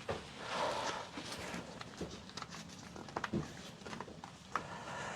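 Handling noise from a Finnish M39 Mosin-Nagant rifle and its wooden stock: scattered light clicks and taps with cloth rubbing, as the stock is wiped down with oil.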